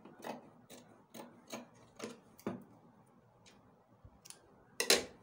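Scissors snipping through cotton fabric, trimming the seam allowance off a sewn trouser pocket: a quick series of crisp snips, about two a second, then a few sparser ones, with one louder snip near the end.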